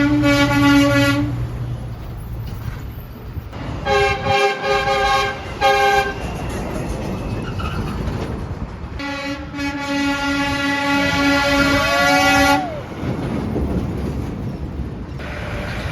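Passing truck's air horn sounding a multi-tone train-horn chord: a blast of about a second and a half, three short toots a few seconds later, then one long blast of about three and a half seconds. Road traffic hisses underneath.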